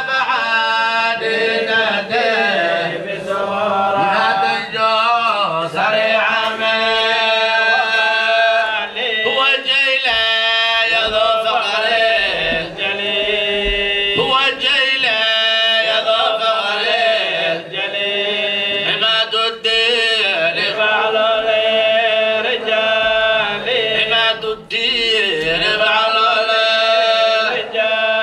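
Men's voices chanting salawat, Arabic blessings on the Prophet Muhammad, in one continuous chant.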